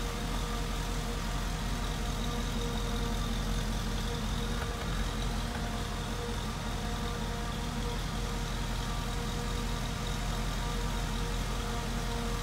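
A 1996 Toyota FJ80 Land Cruiser's engine idling steadily, a low even rumble with a constant hum over it.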